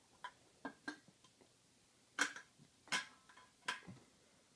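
Empty aluminium drink cans being handled and set down: a few light taps, then three sharper knocks about three-quarters of a second apart, each with a short metallic ring.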